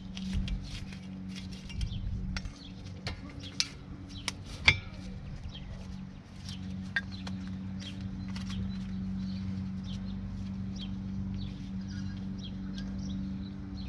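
Small metallic clicks and clinks of brake pad springs and clips being worked by hand into a 2012 Toyota Camry's caliper bracket, with one sharper click about a third of the way in. A steady low hum runs underneath.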